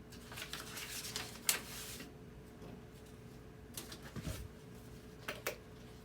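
Short bursts of rustling and several sharp clicks and taps, like things being handled, over a faint steady hum.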